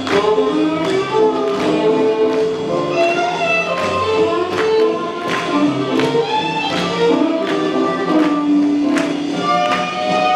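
Swing jazz playing for Lindy Hop dancing, with a steady sharp beat about every three-quarters of a second under sustained melody notes.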